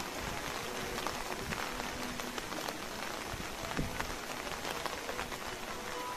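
Steady rain falling on wet pavement and grass, an even hiss dotted with the small ticks of single drops.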